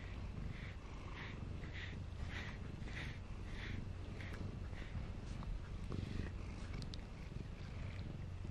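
Domestic cat purring steadily, close up. Over the purr come soft rhythmic swishes about twice a second for the first four seconds or so, fitting brush strokes on the fur, then a few light ticks.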